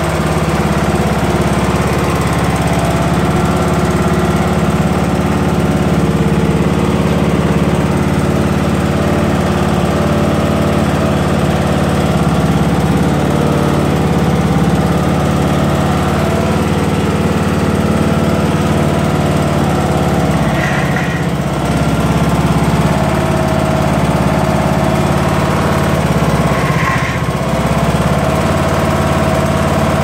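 Briggs & Stratton engine of a Craftsman LT2000 lawn tractor running steadily, with two brief higher-pitched sounds, one about two-thirds of the way through and one near the end.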